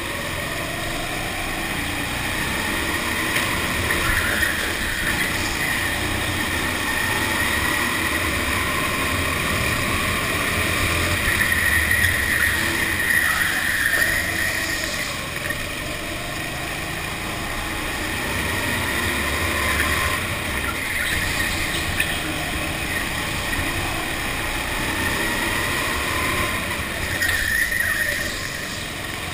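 Go-kart running at speed, heard from on board, its pitch climbing again and again as it accelerates out of corners.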